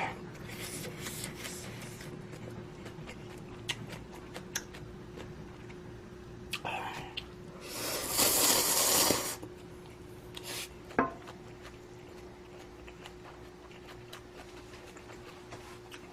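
Close-up eating sounds: scattered small clicks of utensils and chewing, with one loud slurp lasting about a second and a half about eight seconds in. A steady hum runs underneath.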